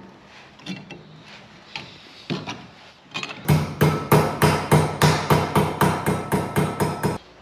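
Hammer blows: a few scattered knocks, then a fast, even run of strikes, about five a second, with a ringing tone under them, that stops abruptly near the end.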